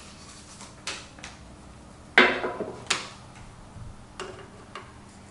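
Scattered clicks and sharp knocks of an AR-15 rifle's parts being handled during barrel reassembly: two sharper knocks about two and three seconds in, with lighter clicks before and after.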